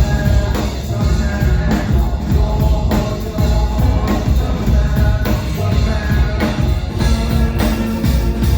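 Live rock band playing loudly: a steady drum beat over bass and keyboard lines.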